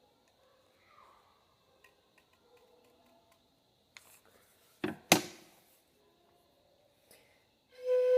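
Two sharp knocks about five seconds in, then near the end a bamboo sáo flute sounds a steady note as a test blow. The test follows re-seating the foam stopper by the blowing hole, and the maker judges the placement still wrong.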